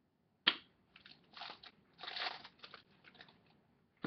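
Foil trading-card pack wrapper being torn open and crinkled by hand: a sharp crack about half a second in, then irregular crinkling rustles, with a second sharp click at the very end.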